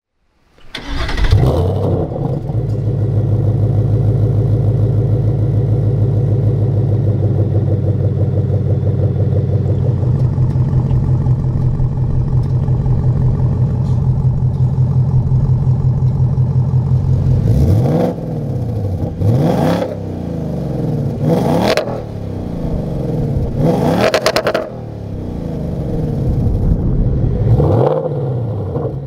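2024 Ford Mustang Dark Horse's 5.0-litre Coyote V8 through an AWE SwitchPath cat-back exhaust, starting up with a brief flare about a second in and then idling steadily with a deep burble. From about halfway on it is blipped about five times, each rev rising sharply and falling back to idle. The last revs are with the exhaust in normal mode.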